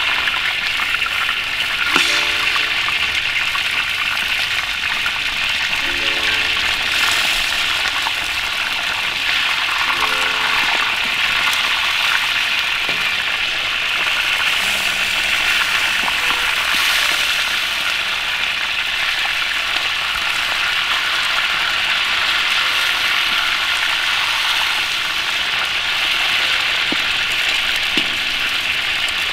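Pieces of sheatfish frying in hot oil in a steel wok, a steady sizzle throughout. A metal ladle knocks and scrapes against the wok a few times, with short metallic rings.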